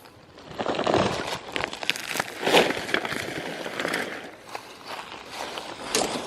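Irregular rustling and crunching, with small crackles, from someone walking through dry roadside grass and handling litter.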